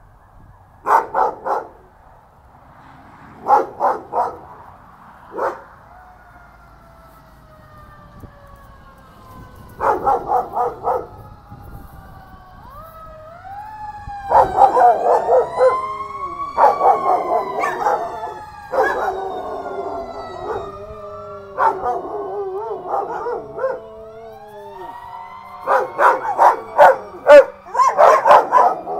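Two Belgian Malinois barking in short bursts, then howling along with a wailing siren about halfway through, the long howls bending up and down in pitch. Barking bursts pick up again near the end.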